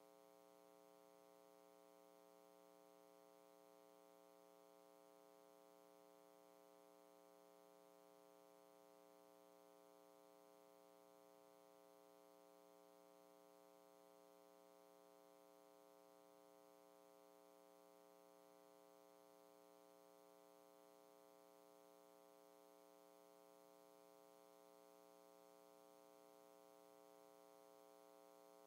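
Near silence: a faint, steady hum that holds unchanged throughout.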